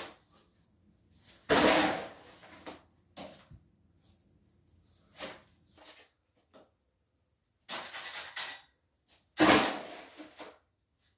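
Gloved hands scooping concrete mix out of a plastic mixing tub and packing it into wooden curb forms: irregular scraping and plopping, with two louder thumps, about a second and a half in and near the end.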